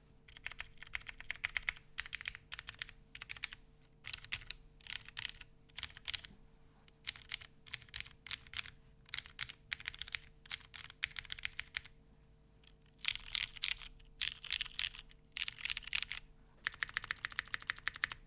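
Typing on a Baionlenja Bias V2 mechanical keyboard with lubed Cherry MX White switches, a full polycarbonate plate and GMK keycaps: short groups of keystrokes on the modifier keys. After about twelve seconds it changes to long runs of fast, dense key-mashing.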